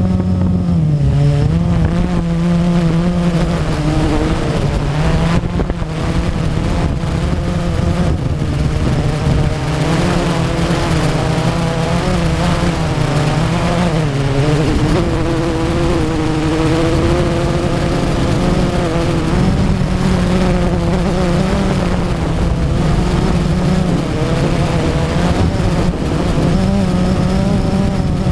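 Drone's electric motors and propellers buzzing steadily in flight, heard close from the craft itself, the pitch drifting up and down as the throttle changes.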